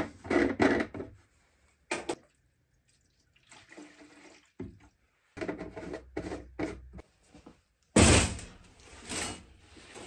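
Diesel being poured into the plastic fuel tank of a diesel air heater, with clicks and knocks as the tank and its screw cap are handled. A loud thump about eight seconds in.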